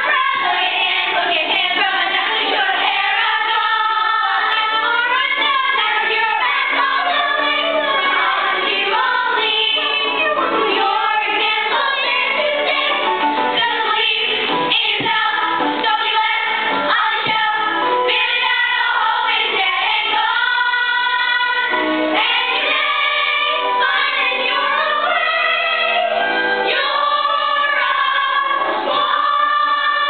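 A cast of children aged 10 to 15 singing a musical-theatre chorus number together over musical accompaniment, steady and continuous throughout.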